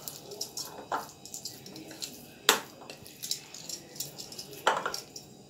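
Metal spoon stirring thick semolina-and-curd batter in a bowl: irregular scraping and light clinks, with sharper knocks against the bowl about a second in, midway (the loudest) and near the end.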